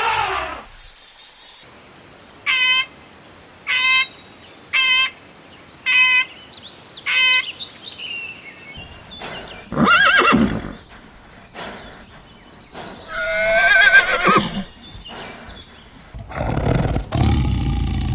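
Whinnying from a horse-family animal: five short, high, pulsed calls about a second apart, then two longer, louder, wavering whinnies. A loud, rough noise comes in near the end.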